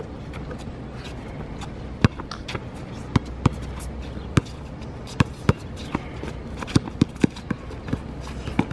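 A basketball being dribbled on a hard outdoor court: about ten sharp bounces at an uneven pace, starting about two seconds in, over a steady outdoor background.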